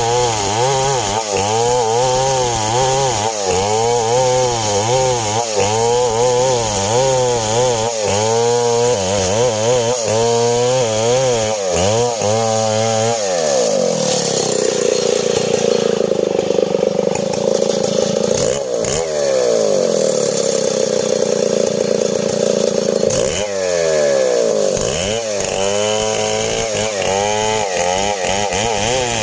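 STIHL 070 two-stroke chainsaw running hard while sawing a coconut-palm trunk, its engine pitch rising and falling about once a second. Roughly halfway through the pitch drops and holds lower for about nine seconds, the engine pulling down under load, then it swings up and down again near the end.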